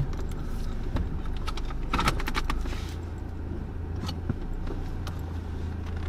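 Steady low rumble of a car heard from inside the cabin, with a few light clicks and rattles.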